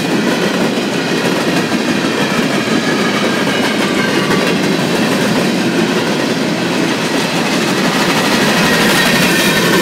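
Empty steel-wheeled coal cars of a freight train rolling by: a steady rumble and clickety-clack of wheels over the rails, with a faint high ringing.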